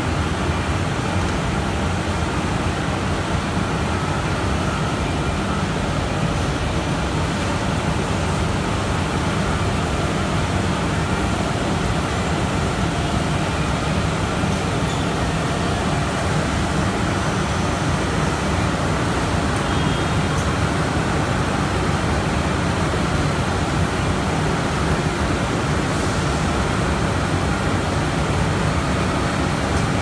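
Mesh-type veneer dryer running: a steady, even machine drone with no rhythm and no change.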